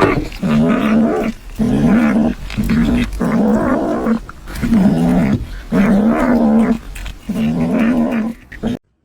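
A cat yowling in about seven long, wavering calls, each under a second, with short breaths between them. The sound cuts off abruptly shortly before the end.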